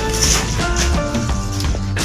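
Background music: a melody of short held notes over a steady bass.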